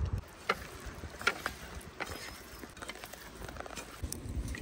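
Scattered light clicks and taps of food preparation as fresh cream goes into soya chaap, over a faint low rumble.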